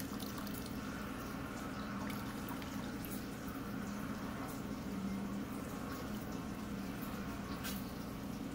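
Thin stream of water trickling from a plastic bottle into a bowl of water, with small splashes and drips as a cat drinks from it.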